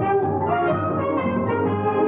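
Instrumental break in a Tamil film song: an orchestra with brass instruments playing a steady melody between the sung lines.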